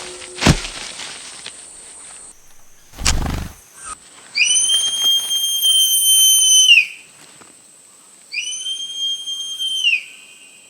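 A manakin's wing-made stridulation note: two long, steady, high whistle-like tones, the first about two and a half seconds and the second shorter, each sliding up into its pitch and dropping off at the end. Before them come a sharp click and a low thump.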